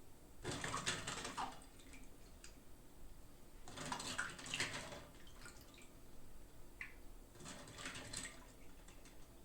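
Packaging being crinkled and rustled by hand while a toy is unboxed, in three bursts of a second or so each with quieter handling between.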